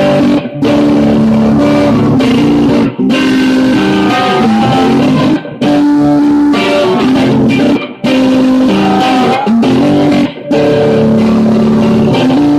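A man singing loudly while playing an electric guitar, in held phrases of two to three seconds with short breaks between them.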